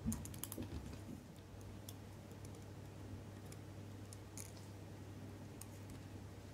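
Light clicks and taps of small tools handling a watch: a quick cluster in the first half second, then a few single clicks spread out. A steady low hum runs underneath.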